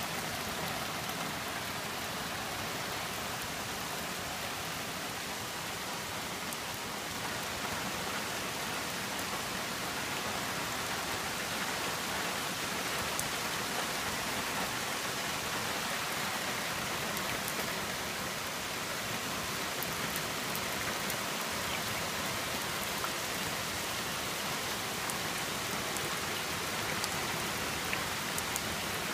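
Steady rain falling on leaves and a roof, an even hiss with scattered sharper drip ticks.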